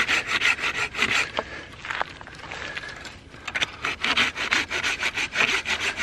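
Small folding pocket saw cutting through a thick hardwood trunk in quick, even back-and-forth strokes. The sawing stops for about two seconds midway, then starts again.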